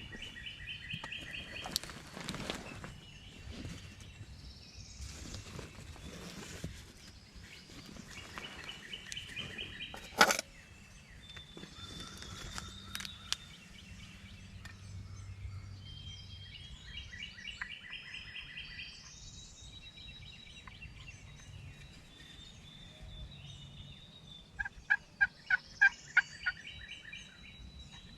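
Wild turkey gobbling four times, each a rattling call of one to two seconds, the last the loudest. Small birds sing between the gobbles, and there is a sharp knock about ten seconds in.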